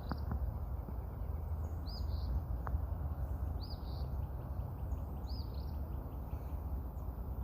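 A bird repeating a short, high, arching chirp about every one and a half to two seconds, over a steady low rumble.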